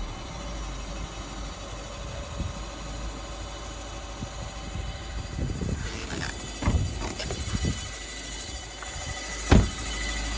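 Volkswagen Golf 6 1.6 TDI four-cylinder diesel engine idling with a metallic noise. Several short knocks come from about halfway through, and one sharp, louder knock comes about a second before the end.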